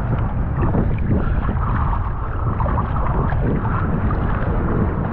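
Wind rumbling on the microphone over choppy sea, with waves sloshing and splashing close by.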